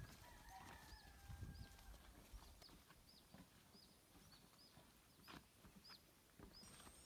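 Faint footsteps knocking on a wooden plank boardwalk at a steady walking pace. A short high chirp repeats about every half second in the background through the second half.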